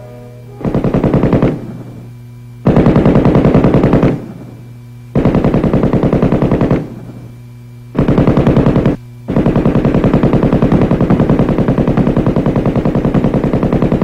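M60 7.62 mm machine gun firing four short bursts of automatic fire, each one to one and a half seconds long, then a long burst starting about nine seconds in. A steady low hum runs underneath.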